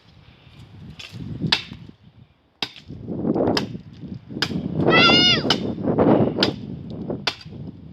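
Tree trunk being chopped, with sharp blade strikes on wood roughly once a second. A short, high pitched sound with a downward bend comes about five seconds in.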